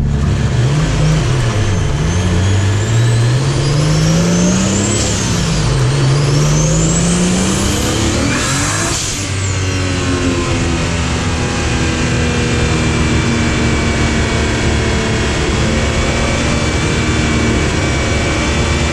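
Single-turbo Toyota 2JZ inline-six in a swapped Nissan 240SX accelerating hard through the gears: the engine pitch climbs and drops back at each shift, with a rising turbo whistle over it. About nine seconds in there is a short burst of hiss, and then the engine runs on at a steadier, slowly falling pitch.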